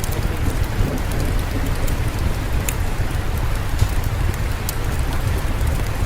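Steady rain, with a deep rumble underneath and a few sharp fireplace crackles scattered through it.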